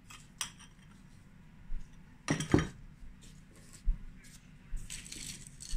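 A metal spoon clinking against a small glass bowl while sugar is spooned out, with a few short knocks of dishes, the loudest a double knock about two and a half seconds in.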